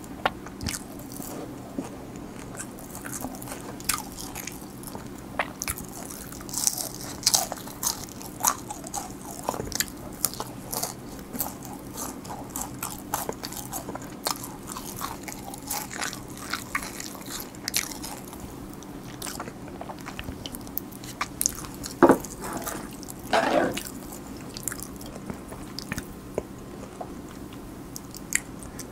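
Close-miked chewing and crunching of crispy fried chicken, with many short crisp crackles. There are two louder knocks about three-quarters of the way through.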